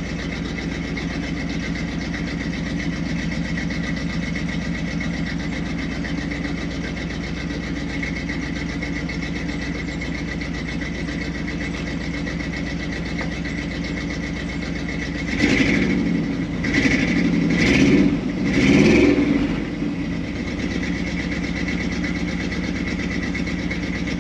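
1964 Chevy C30 panel truck's engine idling steadily, with four quick blips of the throttle about two-thirds of the way through before it settles back to idle.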